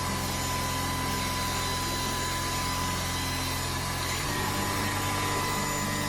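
Cordless stick vacuum cleaner running steadily: a constant rushing of air with a high steady whine from the motor. About four seconds in, the low hum underneath shifts to a different pitch.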